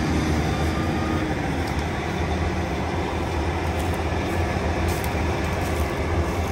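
Diesel engine of a Case IH Quadtrac tractor idling, a steady low rumble.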